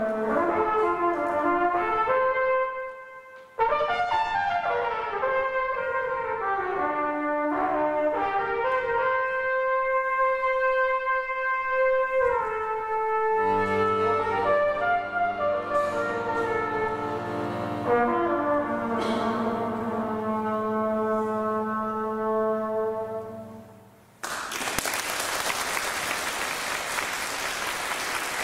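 Trumpet and accordion duo playing a jazz tune. The trumpet carries the melody over accordion chords, and the piece ends on a long held chord that cuts off about 24 s in. Audience applause follows.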